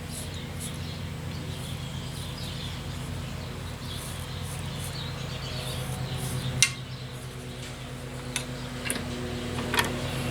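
Drill press motor running with a steady low hum, with a few sharp clicks and knocks from handling the workpiece, the loudest about two-thirds of the way through.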